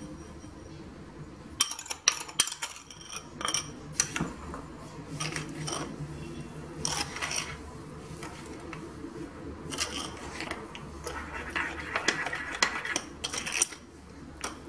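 A metal spoon stirring sugar into puréed strawberries in a ceramic bowl, with repeated clinks and scrapes of the spoon against the bowl starting about a second and a half in.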